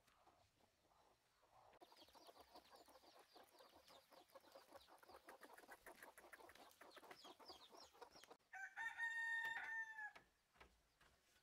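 Chickens clucking in a fast, busy run of short calls, then a rooster crows once, loud and held on one pitch, dropping at the end, near the end.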